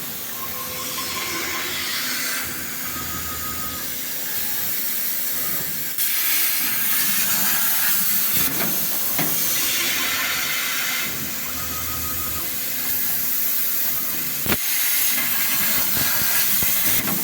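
CNC plasma cutter's torch cutting sheet metal: a loud, steady hiss of the plasma arc and air jet. It steps louder and quieter a few times, with a sharp click late on.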